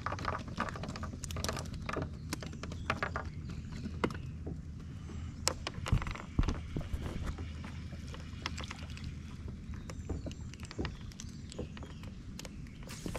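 Handling noises on a boat's deck as a freshly caught bluegill is held and unhooked: scattered clicks and knocks, the loudest about six seconds in, over a steady low hum.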